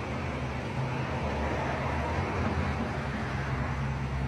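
Steady low hum under a constant background noise, with no distinct event such as thunder.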